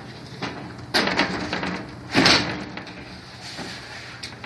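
A glass balcony railing panel being set down into its metal railing: a sharp knock and scrape about a second in, then a second, louder scrape a little after two seconds, over a faint low hum.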